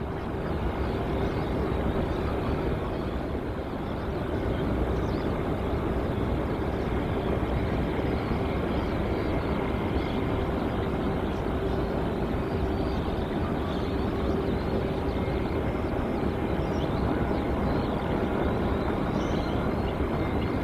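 Jet airliner engines running steadily: an even, loud rush of noise with a constant low whine through it.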